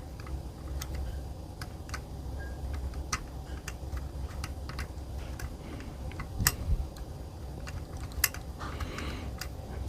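Scattered light clicks and ticks of small metal parts being handled and threaded back together in an air rifle's action, over a low steady hum.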